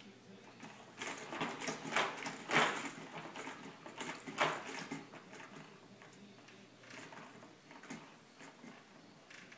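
Fisher-Price Jumperoo baby jumper rattling and clicking as the baby shifts and bobs in it, its plastic seat, tray toys and frame knocking together. A cluster of clicks and knocks runs through the first few seconds, with a few fainter ones later.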